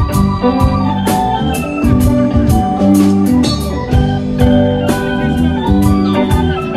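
Live band playing an instrumental break: held chords ring over a steady drum beat and bass.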